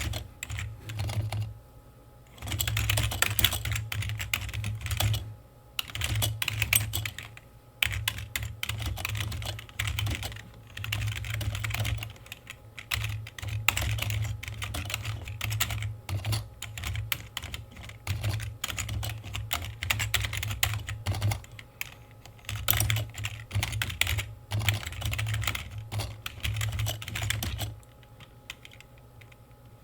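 Typing on a computer keyboard: fast runs of key clicks in bursts of a few seconds, broken by short pauses, with a longer pause near the end.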